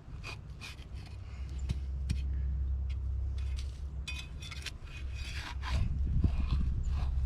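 Hand tool scraping and digging soil out of a trap-set hole in a series of short strokes, over a low rumble.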